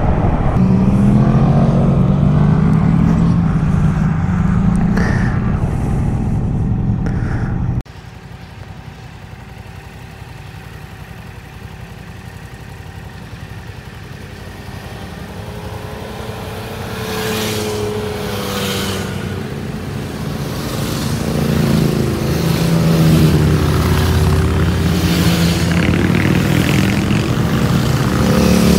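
Yamaha MT-07 parallel-twin engine, restricted to 35 kW, heard from the bike while riding, its pitch rising and falling with throttle and gear changes. About eight seconds in the sound drops suddenly to a much quieter, steady drone, then builds back up to full loudness over the following seconds.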